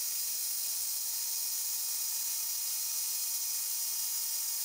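Manual milling machine's face mill cutting across the hardened, tool-steel-like jaw of a vise under coolant: a steady high-pitched whine and hiss.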